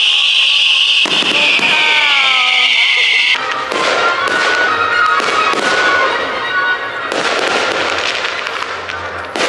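Fireworks display: ground fountains give a loud, steady, high hiss that cuts off suddenly about three seconds in, then a dense run of crackling and popping from aerial effects. Music plays along faintly underneath.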